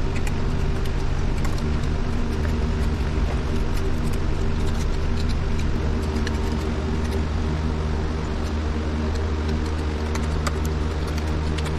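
A steady low mechanical hum, like a motor running, with faint scraping and clicking of a steel tuckpointing trowel working mortar into a block wall joint.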